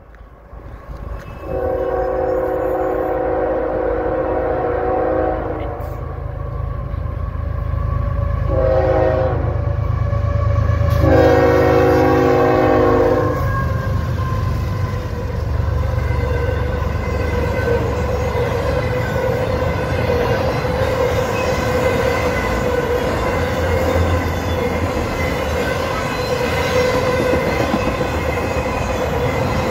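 CSX diesel locomotive sounding its multi-tone horn for a grade crossing: a long blast, a short one, then another long one, over the loud rumble of the engine as it passes. After that comes the steady rumble and rail noise of intermodal cars rolling by.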